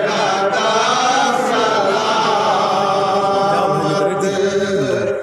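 Men singing a Sufi manqabat (devotional song) together in a steady chant, several voices overlapping in sustained, drawn-out lines.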